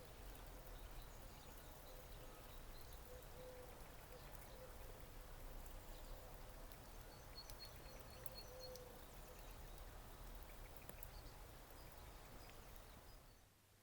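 Faint outdoor rural ambience with distant birds calling, including a quick run of about six high chirps a little past the middle. It fades out near the end.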